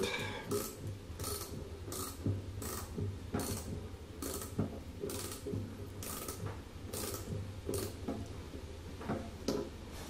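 Hand ratchet clicking in short, even back-strokes, about three every two seconds, as it snugs the water pump housing nuts on a Ferguson TO-20, drawing the pump down onto fresh black RTV sealant until it starts to squeeze out.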